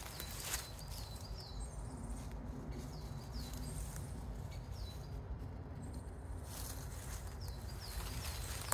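Small bird calling in clusters of short, high chirps that swoop down then up, repeated several times, over a steady low background rumble.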